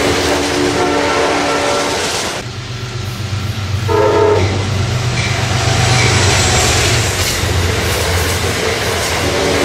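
Diesel passenger locomotive sounding its multi-note horn: a held chord at the start, a short loud blast about four seconds in, then fainter horn notes. The low rumble of the engine and wheels runs underneath as the train approaches.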